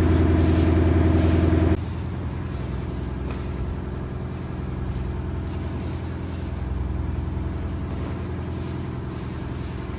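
Boat engine running steadily; about two seconds in its level drops abruptly, and it runs on more quietly.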